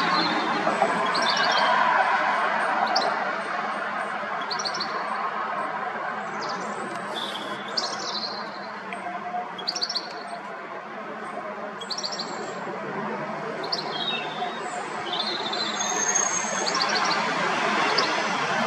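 European goldfinch calling: short calls of a few quick, high notes, repeated every second or two, over a steady background noise.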